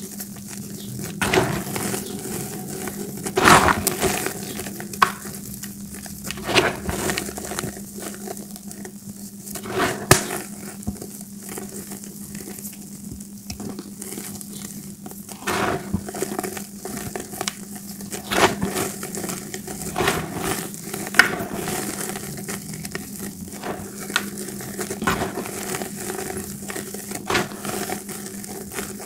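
Crumbled gym chalk being squeezed and crushed in bare hands, giving irregular crunches and soft crumbling as the powder sifts down, with a few louder crunches scattered through.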